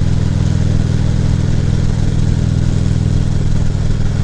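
2014 Harley-Davidson Ultra Classic Limited's V-twin engine running at a steady speed, a low, even beat.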